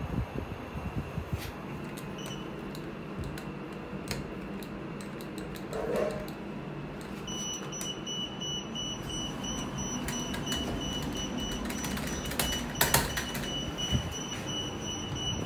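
KONE lift car interior: a steady low hum with light clicks from the car buttons being pressed. About halfway through, a high electronic tone starts and holds steady for most of the rest, with a few sharp clicks near the end.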